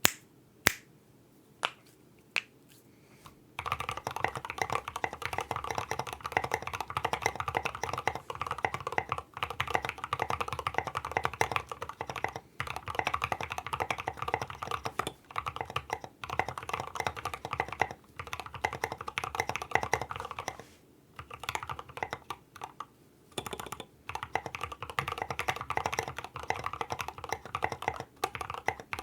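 KBD75v2 mechanical keyboard with lubed Gateron Milky Yellow linear switches, an aluminium plate and SA keycaps, typed on with a thock. A few single keystrokes come first, then continuous fast typing starts about three and a half seconds in, with a couple of short pauses.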